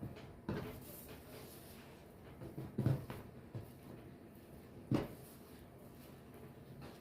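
Kitchen handling sounds: three dull knocks, about half a second, three seconds and five seconds in, with quieter rustling and small taps between them.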